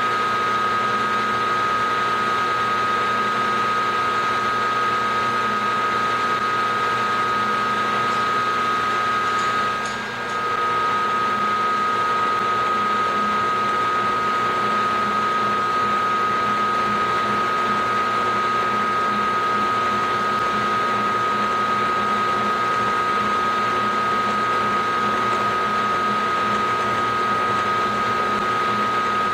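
Homge milling machine running a roughing end mill through an aluminium block: a steady high whine over the noise of the cut. The level dips briefly about ten seconds in.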